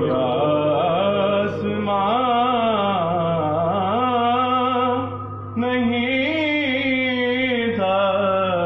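A man singing a naat into a handheld microphone, drawing out long, wavering melismatic notes. He breaks off briefly about five seconds in, then resumes. A steady low hum lies beneath the voice.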